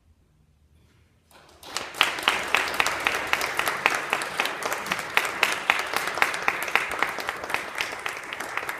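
A moment of near silence, then an audience breaks into applause about a second and a half in and keeps clapping steadily.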